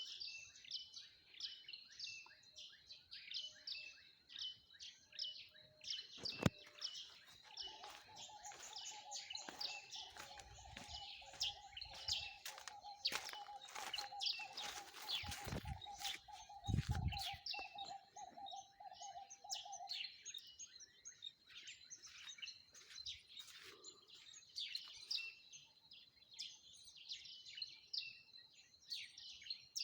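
Many small birds chirping in a dense, rapid chorus of high chirps. A steady mid-pitched tone holds through the middle stretch, and there are a few low rumbles and knocks about halfway through.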